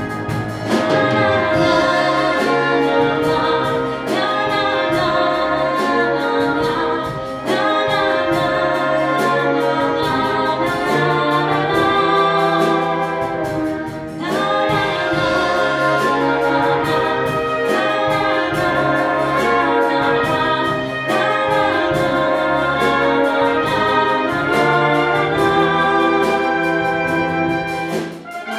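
A woman singing a ballad into a microphone, accompanied by a full concert wind band of clarinets, saxophones, brass and string bass playing sustained chords.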